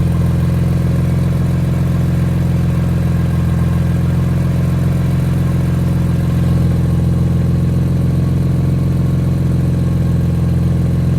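BMW E46 M3's S54 straight-six engine idling steadily, which the owner suspects has an exhaust leak at section 1, the front section of the exhaust.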